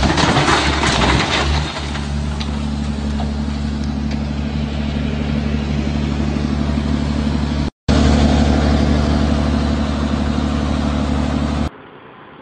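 Heavy machinery engine running steadily, with a loud noisy crash-like burst in the first second or two. The audio drops out briefly about eight seconds in, then cuts to a quieter, duller background near the end.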